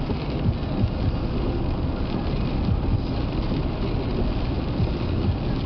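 Car driving on a wet road, heard from inside the cabin: a steady low noise of engine and tyres.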